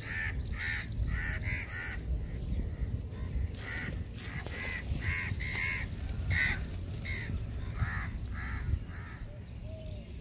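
Bird cawing over and over in short harsh calls: a quick run of calls in the first two seconds, then after a pause a steady string of calls until near the end, over a low rumble.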